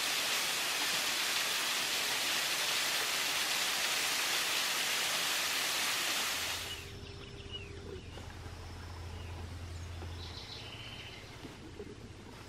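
Small waterfall splashing down rock ledges: a steady rushing of water that stops abruptly about halfway through. After it, a quieter low hum with a few faint bird chirps.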